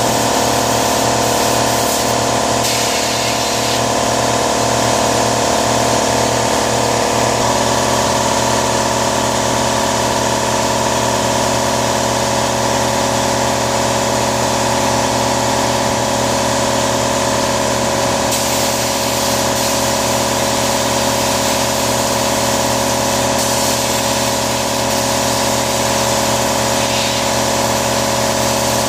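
A machine running steadily with a constant hiss. Its hum holds several steady tones that step to a new pitch about seven seconds in.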